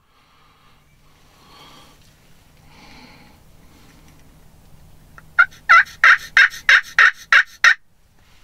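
Turkey pot call (friction call) worked with a striker: a few soft notes, then a run of about eight loud yelps at roughly three a second, each note falling in pitch, imitating a hen turkey.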